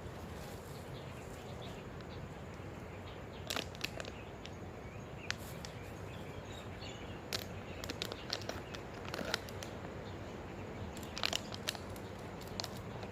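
Scattered crackles and crunches, in small clusters, over a steady outdoor background noise.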